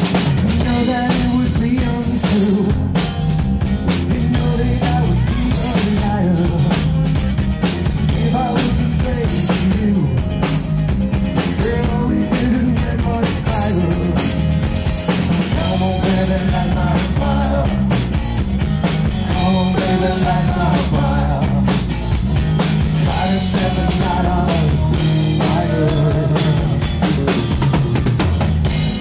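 Live pop-rock band playing: electric guitar from a Stratocaster-style guitar over a drum kit and a strong low bass line, with a wavering melody line running through.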